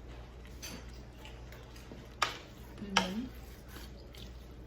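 A utensil clinking against a cooking pan a few times while the stir-fry is stirred, with two louder clinks about two and three seconds in.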